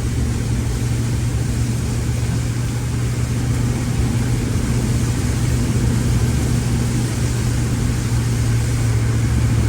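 A car's engine and road noise heard from inside the cabin while driving: a steady low engine hum under an even rushing noise, with no sudden changes.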